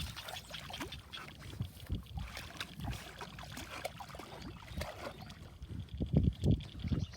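Water splashing and lapping, with wind buffeting the microphone in gusts; the loudest gust comes about six seconds in.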